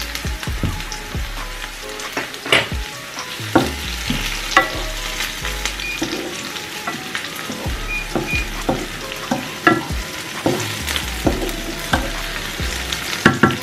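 Sliced red onion and garlic sizzling in oil in a frying pan, sautéed as the base for the noodles. A wooden spatula stirs them, with irregular knocks and scrapes against the pan throughout.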